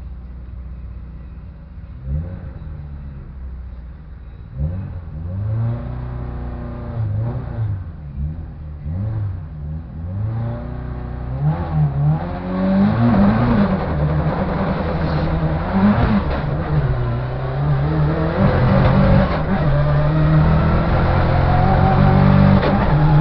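Ford Focus RS engine with a bad misfire, revved in a series of short blips, then running hard and louder under load with its pitch slowly rising as the car accelerates.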